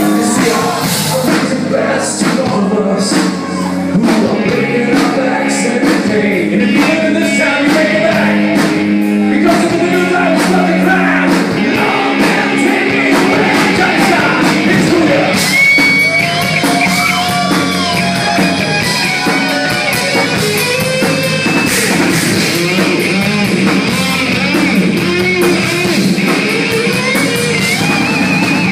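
A live rock band playing loud, with a singer over electric guitars and drums.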